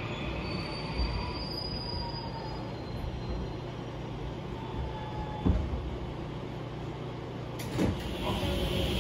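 Interior running sound of an Incheon Subway Line 1 train in a tunnel: a steady rumble of wheels on track, with faint wheel squeals. There are two sharp clunks, about five and a half and eight seconds in.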